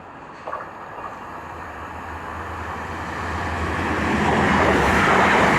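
Northern Ireland Railways CAF Class 4000 diesel multiple unit approaching, its engine and wheel rumble growing steadily louder as it nears.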